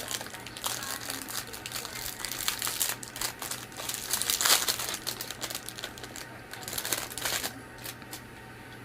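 Packaging being crinkled and rustled by hands as an item is unwrapped, in irregular crackly bursts, loudest about halfway through and dying away near the end.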